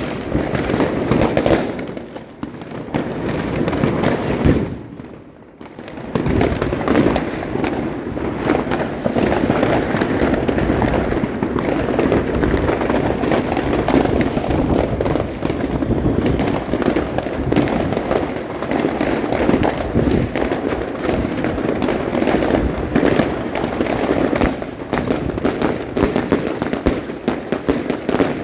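Evolution Fireworks 'Bunker Blaster' firework box firing: a dense, continuous run of shots and bursts. There is a short lull about five seconds in, then sustained firing, with sharper, rapid cracks near the end.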